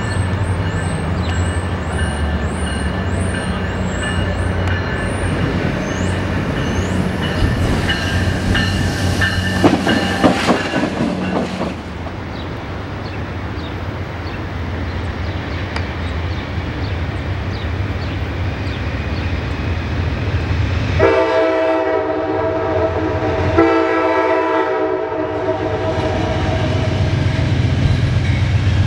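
Diesel-hauled passenger trains on the main line: a Virginia Railway Express commuter train rumbles and clatters past over the rails. Then an approaching Amtrak Genesis diesel locomotive sounds its horn in two long blasts about two-thirds of the way through, and its rumble grows louder as it nears.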